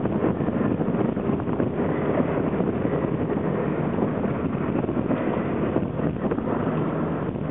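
Wind blowing across the microphone, an uneven rush of noise that rises and falls.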